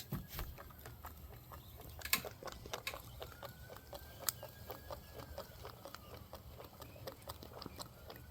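Small sterno-fired model stationary steam engine running, its piston and linkage ticking in a quick steady beat of several ticks a second, with two louder clicks about two and four seconds in and a faint high tone that comes and goes.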